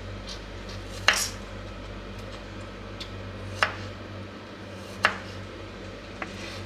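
Kitchen knife slicing through garlic cloves, the blade knocking down onto a wooden cutting board: three sharp knocks a second or two apart, then a fainter one near the end.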